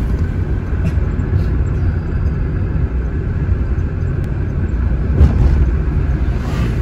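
Low, steady road and engine rumble heard from inside a moving car's cabin, with a brief thump about five seconds in. Near the end an oncoming van swishes past.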